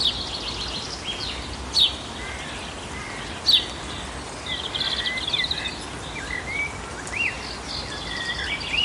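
Several songbirds chirping and trilling over a steady outdoor hiss. Two loud, sharp calls sweep down in pitch, a little under two seconds in and again at about three and a half seconds.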